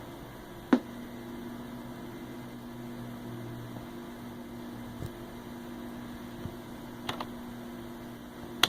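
Steady electrical hum with a low, even tone, broken by a few sharp clicks: one just under a second in, two more around five and seven seconds in, and one at the very end.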